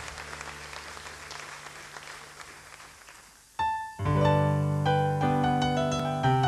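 Audience applause fading away over the first three seconds or so. About three and a half seconds in, a single note rings out. Half a second later a piano begins slow sustained chords over low bass notes.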